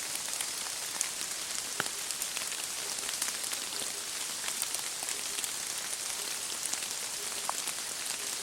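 Steady rain falling through a beech forest onto leaves and the forest floor: an even hiss with many separate drops ticking through it.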